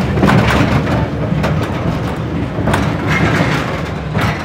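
Mine ride car rolling on its track, a steady low rumble with intermittent rattles.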